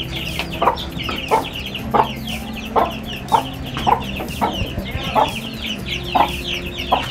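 A brood of month-old chicks peeping without pause, many rapid high peeps overlapping, with a lower, louder short call breaking in roughly every half second.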